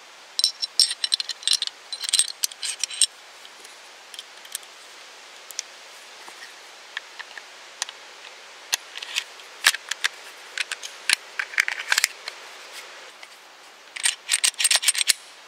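Glock 43 pistol being reassembled by hand: sharp metal clicks and clatter as the barrel, recoil spring and slide are fitted back together. The clicking comes in three bunches, with a quick run of clicks near the end.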